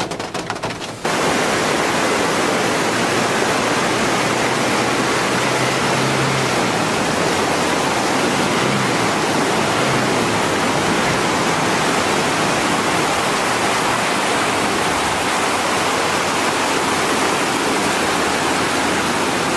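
Steady rush of fast-flowing water from a stream or river running high, an even hiss that starts abruptly about a second in and holds unchanged.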